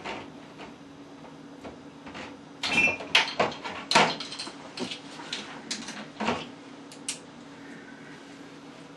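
Kitchen clatter: knocks and light clinks of bottles and utensils being handled on a counter, loudest in a quick cluster about three to four seconds in, over a steady low hum.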